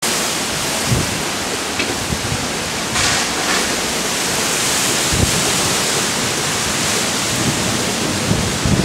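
Heavy thunderstorm gusts: a steady rushing hiss of wind that swells briefly about three seconds in, with low thumps of wind buffeting the microphone.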